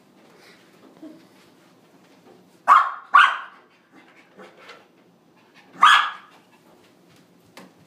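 Puppy barking: two quick barks about three seconds in, then a single bark about six seconds in.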